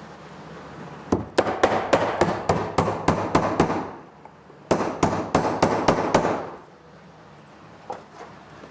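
Hammer striking at the top pine board of a tongue-and-groove wall: two runs of quick, regular blows, about four a second, the second run shorter.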